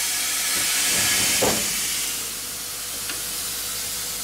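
Steam hissing loudly in a steam locomotive's cab as the regulator lever is worked, easing off about two seconds in. A single knock sounds about a second and a half in.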